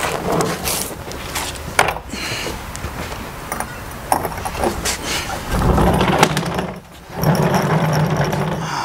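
A heavy plywood cabinet is tipped over onto its new casters, with scattered knocks and clatters. About five and a half seconds in, the casters start rolling on concrete: a steady low rumble that stops briefly a second later, then carries on.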